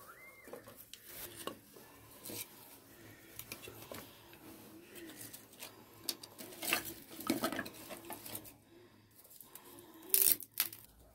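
Dry split-wood kindling sticks knocking and clattering against each other and the stone hearth as they are stacked into a fire lay. It is an irregular scatter of light wooden clacks, with the loudest couple of knocks near the end.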